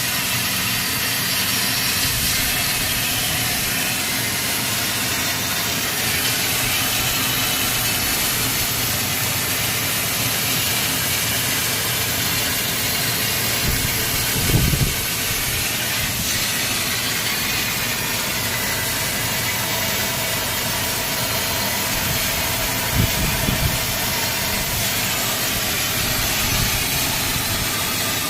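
CNC laser cutting machine cutting an 8 mm chassis plate: a steady, loud hiss of the cutting process, with a brief low thump about halfway through and a few more near the end.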